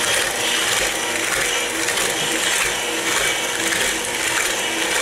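KitchenAid Classic stand mixer's motor running steadily as its beater works through shortcrust pastry dough in the steel bowl.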